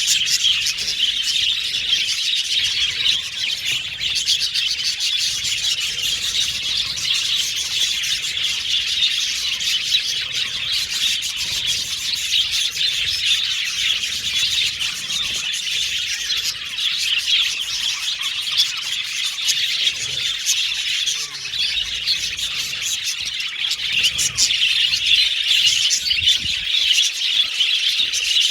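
A flock of budgerigars chirping and chattering continuously, many short overlapping high chirps and warbles with no pauses.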